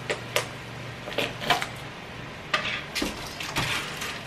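Kitchen containers and utensils handled on the counter: a string of about seven light, irregular clicks and knocks, with a brief scraping rustle about three and a half seconds in.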